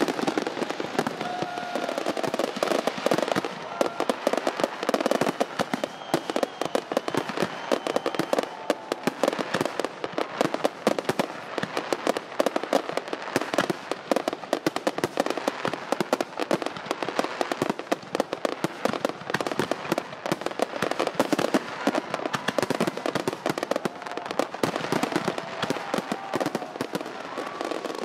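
Fireworks going off without a break: a dense, steady run of rapid pops and bangs.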